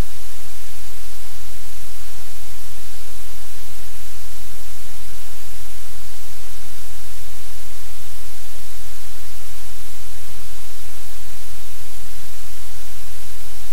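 Loud, steady static hiss over a low hum, with no distinct sounds standing out.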